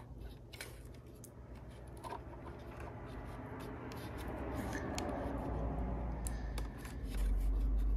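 Faint plastic clicks and rubbing as a 20-amp blade fuse is pushed into a Jeep's under-hood fuse box by hand, with a scraping noise building up midway and a low rumble near the end.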